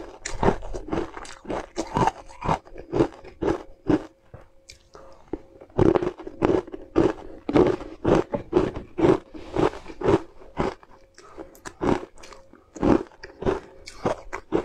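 Close-up crunching and chewing of powder-coated ice pieces, sharp crunches coming about twice a second, with a quieter spell of chewing about four seconds in before the crunching picks up again.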